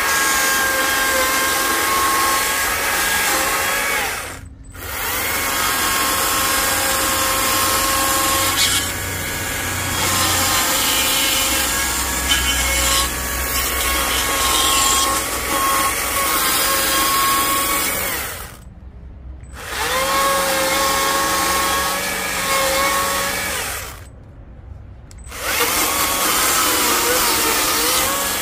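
Stihl MSA 140 C battery chainsaw with a narrow dime-tip carving bar, running with a steady electric whine as it cuts into western red cedar. It stops briefly three times and starts again each time.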